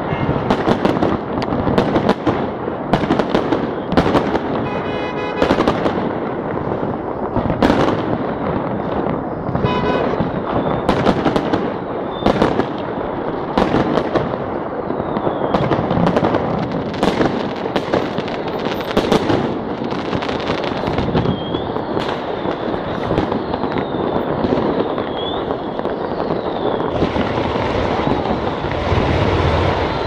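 Fireworks display: aerial shells bursting overhead in many sharp bangs in quick, irregular succession over a dense continuous din, with a few short high whistles in the second half.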